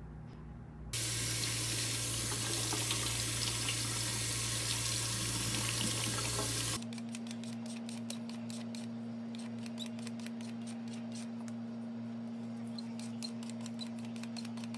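A kitchen tap runs into a stainless steel sink for about six seconds, then cuts off sharply. After that a vegetable peeler scrapes the skin off a Korean radish in many quick repeated strokes, with a steady low hum underneath.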